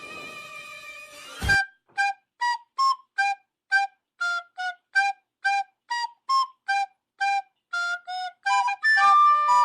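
A flute-like wind instrument playing a melody of short, detached notes, about two a second, that turn to longer held notes near the end. It opens with a steady held tone that a sharp hit cuts off about a second and a half in.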